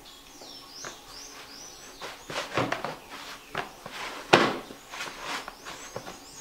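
Hands kneading and pressing whole-wheat bread dough in a plastic bowl: irregular soft squishing and slapping strokes, the loudest a little past four seconds in. A bird chirps a few short, high, falling notes near the start.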